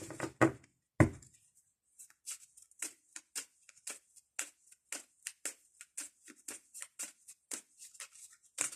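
Playing cards being dealt one at a time onto a table, each landing with a short snap, about two to three a second, after a single louder knock about a second in.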